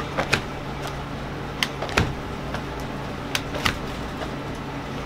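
Hot candy being pulled by hand on a metal hook: about five sharp slaps as the mass is thrown over the hook and drawn out, some in quick pairs, over a steady low hum.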